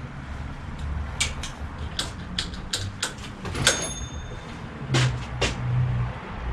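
Clicks, knocks and clinks of hand tools and bicycle parts being handled, about a dozen in all, one of them a metallic clink a little after halfway that rings briefly. A steady low rumble runs underneath.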